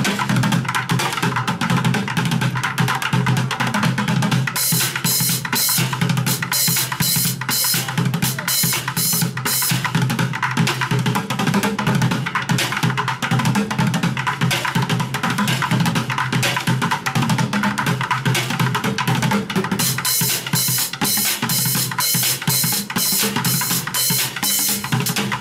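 Drumming with a steady, fast beat: bass drum and snare with rapid high cymbal or hi-hat strokes.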